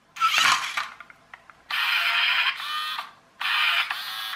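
Small electric motors and plastic gear trains of a toy RC car whirring in three short bursts, one burst near the start and two longer ones after that, as the radio transmitter's controls are pressed.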